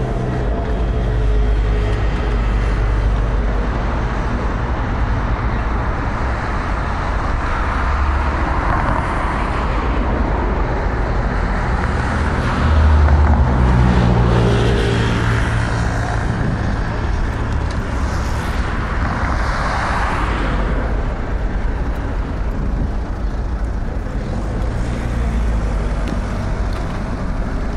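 City road traffic: a steady rumble of cars with several vehicles passing close by. The loudest passes about halfway through, with a low engine hum.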